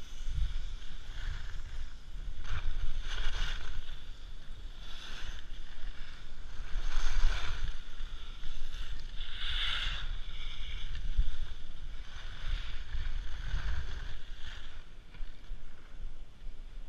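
Skis carving turns on packed snow: a scraping hiss surges with each turn, about every one to two seconds, over a low wind rumble on the camera microphone. The hissing eases off near the end as the skier slows to a stop.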